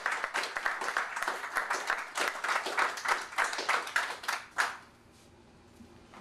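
A roomful of people applauding, a dense patter of hand claps that dies out about four and a half seconds in.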